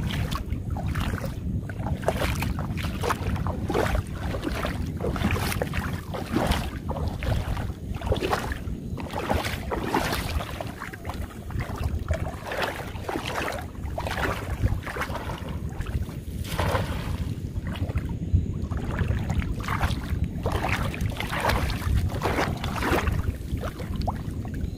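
Shallow lagoon water sloshing and splashing in irregular bursts around wading legs and a cast net being handled, over a steady low rumble of wind on the microphone.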